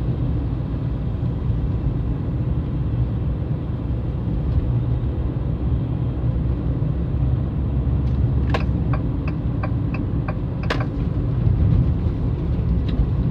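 Steady low rumble of engine and road noise inside a moving Jeep Renegade's cabin. About two thirds of the way in comes a quick run of about eight clicks over two seconds.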